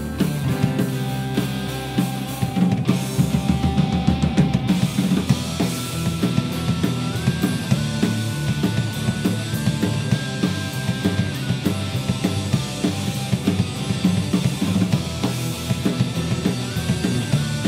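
Celtic punk band playing live: a steady drum-kit beat with electric guitar and bass. Over it runs a high melody line of long held notes that steps up and down.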